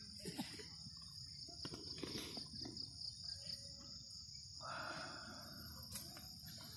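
Crickets chirring steadily and faintly, with a few soft clicks of a spoon stirring rice in a metal camping pot and a short soft hiss about five seconds in.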